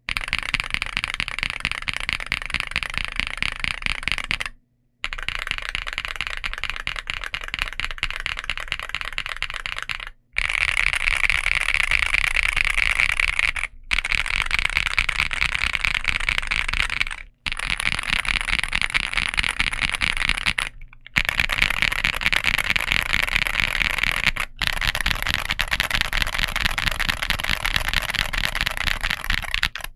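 Fast typing on a Womier RD75 mechanical keyboard with Womier full-POM linear switches and double-shot PBT Cherry-profile keycaps: a continuous dense clatter of keystrokes. It breaks off into brief silences several times.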